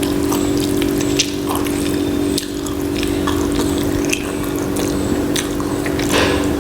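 Wet eating sounds of rice and egg curry: many short, sharp smacks and squelches over a steady hum.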